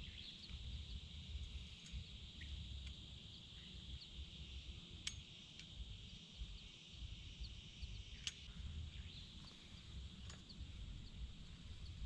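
Quiet outdoor ambience: a steady high-pitched hiss with faint scattered chirps, a low rumble underneath, and two sharp clicks, one about five seconds in and one about eight seconds in.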